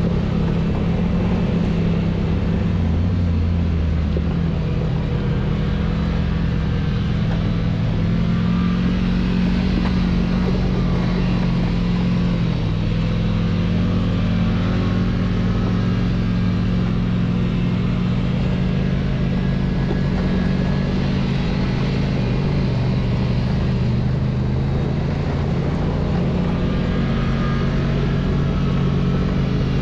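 Side-by-side UTV engine running steadily while cruising along a dirt trail, its pitch rising and falling a little with the throttle, over a constant haze of road and wind noise.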